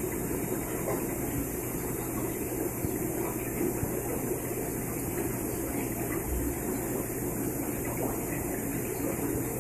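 Aquarium aeration running: a steady hum with water bubbling as air rises from the tank's air line and pipe.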